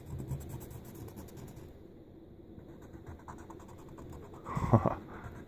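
Felt-tip permanent marker faintly scratching and dabbing on a wooden cabinet door joint, with a short grunt near the end.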